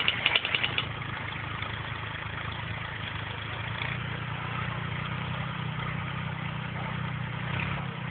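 Tractor engine running steadily while pulling a plough. Its low hum grows stronger about four seconds in.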